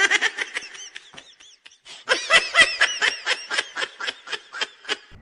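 Laughter: a run of short, rhythmic ha-ha pulses, soft at first and louder from about two seconds in, at about four or five a second.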